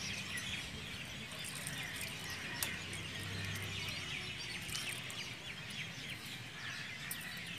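Small birds chirping repeatedly in the background, many short high chirps over a steady faint hiss.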